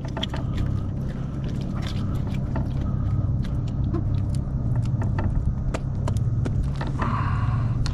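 A steady low rumble with scattered small clicks and taps throughout.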